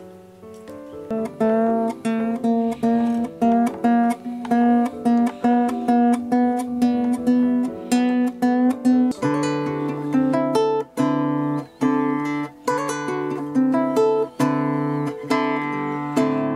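Nylon-string Ibanez classical guitar played fingerstyle: a steady picked arpeggio pattern of about two notes a second, with a low bass note joining about nine seconds in.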